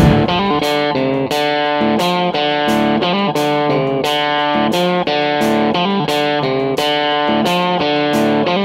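Background music: guitar-led track with chords changing at a steady beat.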